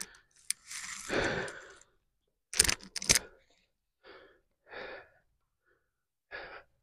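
A man's heavy breathing: a long exhale about a second in, then short puffs of breath near the end as he starts single-leg calf raises. Two sharp metal clanks about two and a half and three seconds in as a hex dumbbell is lifted off the rack.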